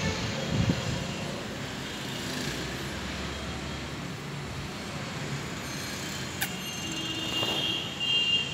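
Steady background noise, with a single click about six and a half seconds in and a brief high-pitched squeal near the end.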